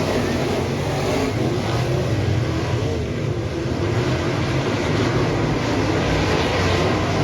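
Dirt modified race car engines running at low pace-lap speed, a steady loud note that wavers a little, dipping slightly about three seconds in.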